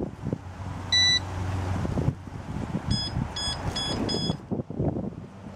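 Electronic carp bite alarm beeping: one beep about a second in, then four quick higher beeps, set off as the rod and line are handled on the rest. Wind rumbles on the microphone and there are soft handling knocks.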